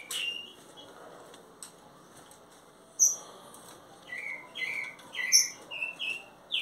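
Green-winged saltator (trinca-ferro) singing: a couple of sharp high chirps, then from about four seconds in a quick run of short whistled notes that each slide downward.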